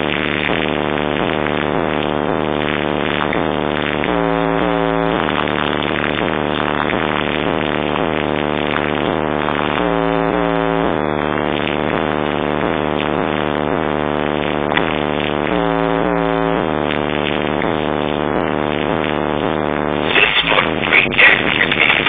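Music played loud through a car's sound system in a sound test, with a steady level and a phrase that repeats about every six seconds.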